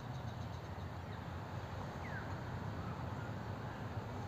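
Quiet outdoor ambience: a steady low rumble, with one faint short bird chirp about two seconds in.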